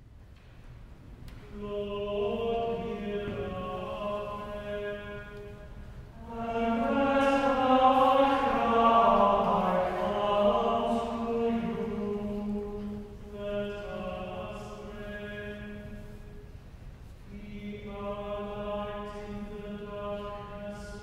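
Unaccompanied plainsong versicle and response. A single voice chants on one held note, then a louder, fuller answer with moving pitch comes in about six seconds in. From about thirteen seconds a single voice again recites on a monotone, as for a collect.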